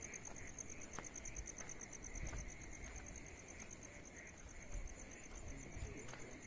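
Night insects trilling steadily: a high, rapidly pulsing trill that never stops, with a fainter, lower chirping beneath it. Soft footsteps and handling thumps on wet ground come through underneath, most noticeably in the second half.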